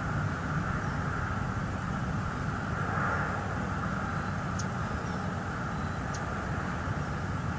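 Steady outdoor background rumble and hiss picked up by the eagle nest cam's microphone, with two faint, very short high chirps in the second half.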